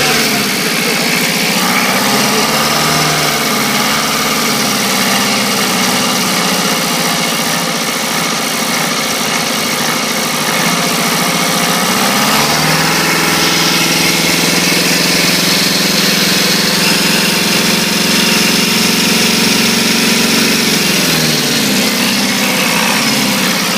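An engine running and being revved: its pitch rises about halfway through, holds higher for several seconds, then falls back near the end.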